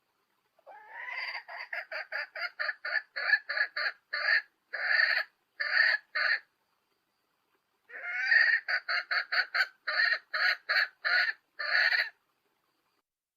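A hen cackling in two bouts. Each bout is a quick run of short notes that ends in a few longer ones. It is a female's call, used to stir males into breeding condition.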